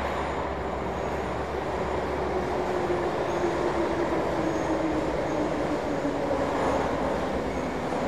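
Moscow Metro train running at the platform: a steady rumble with a whine that slowly falls in pitch over several seconds, over a low steady hum.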